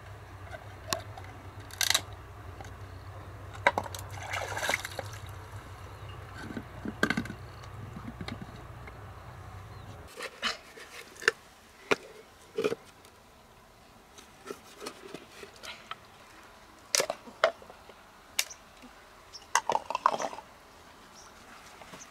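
Wet handling of freshwater mussels: scattered clicks and taps with short squelching sounds, a few sharper knocks among them. A low steady hum runs underneath and cuts off suddenly about ten seconds in.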